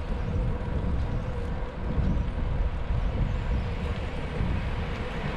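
Wind buffeting the microphone while cycling, a steady low rumble with a faint steady hum underneath.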